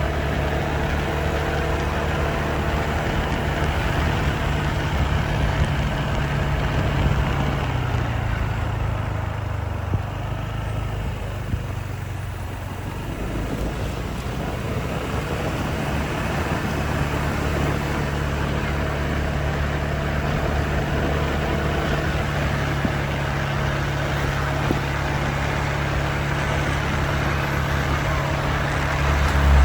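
Vehicle engine running steadily with road noise; its pitch drops about eight seconds in, it eases off for a few seconds, then picks back up to a steady run, with a low thump near the end.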